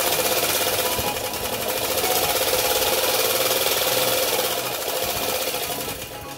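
Old sewing machine converted into a small band saw, running fast as its blade cuts through EVA foam: a steady, rapid mechanical rattle that eases off near the end.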